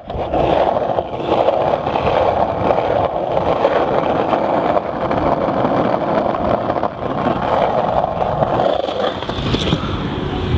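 Skateboard wheels rolling steadily over rough asphalt, a continuous gritty rumble, with a single knock near the end.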